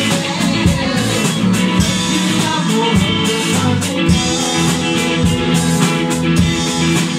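Live band playing a song: harmonium, electric guitars and drum kit, with a male voice singing.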